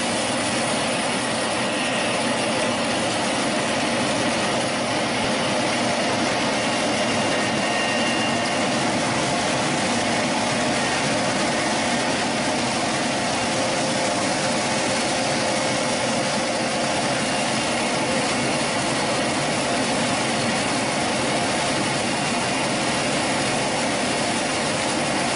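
NF 280 corn peeling and polishing machine running steadily while dehulling corn kernels, an even, unchanging machine noise.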